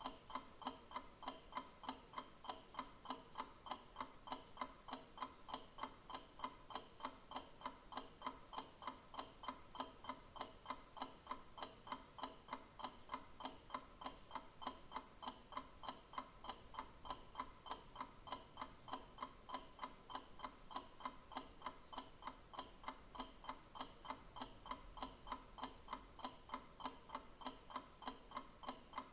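Clock ticking: steady, evenly spaced sharp ticks, a few each second, with no change.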